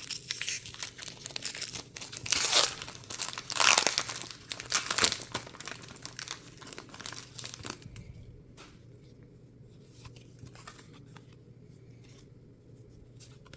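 Foil wrapper of a Pokémon card booster pack crinkling and tearing as it is pulled open, in several loud bursts over the first half. For the last few seconds only faint scattered ticks and rustles remain.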